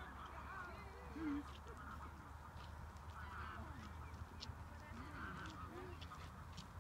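A flock of geese honking, many short calls overlapping, faint, over a low steady rumble.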